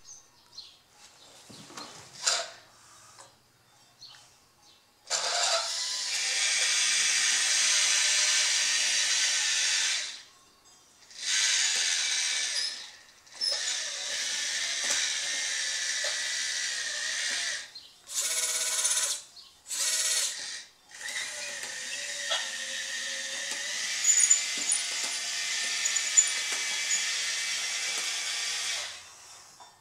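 Electric drive motors and gearboxes of a radio-controlled Bruder CAT D11 model bulldozer whirring in runs of a few seconds, stopping and starting several times as it drives and pushes into a sand pile. The first few seconds are nearly quiet before the first run begins.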